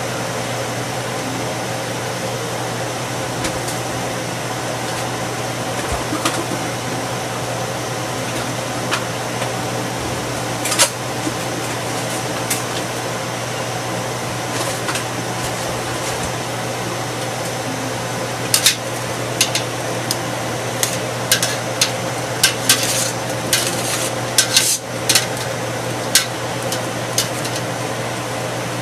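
A stainless steel stockpot of shrimp boiling on the stove over a steady low hum. From about two-thirds of the way in, a run of sharp metal clinks as a utensil knocks against the pot and its strainer insert.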